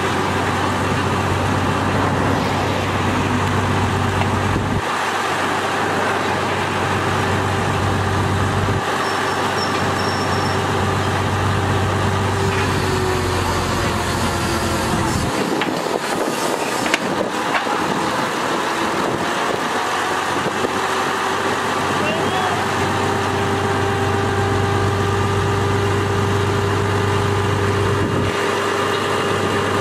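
Truck-mounted crane's engine running steadily while it lifts an overturned dump-truck cab, its low hum dropping away and coming back a few times, with people's voices in the background.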